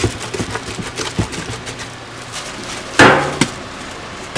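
Gloved hands scraping and lifting sticky churro dough out of a stainless steel mixer bowl, with a run of soft knocks against the bowl, then one loud metallic clang about three seconds in.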